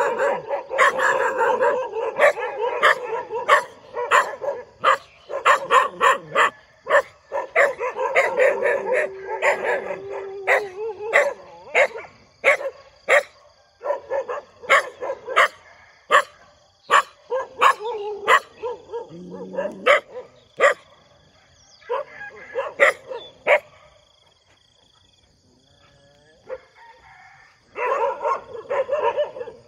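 Dog barking repeatedly in quick runs of sharp barks, with one longer held note about a third of the way through. It goes quiet for a few seconds near the end, then barks again.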